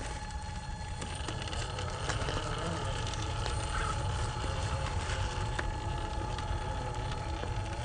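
Traxxas TRX-4 RC crawler's electric motor and geared drivetrain whining at a steady pitch as it crawls slowly, with small clicks and crunches from the tyres working over loose rock and a low rumble underneath.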